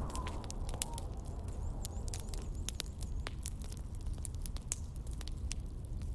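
Wood campfire crackling, with irregular sharp pops and snaps over a low, steady rumble.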